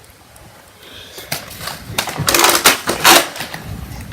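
Hard plastic clicks and rattling from a Nerf Rival Apollo XV700 blaster being handled, loaded and primed. There are several quick clacks in a row during the second and third seconds.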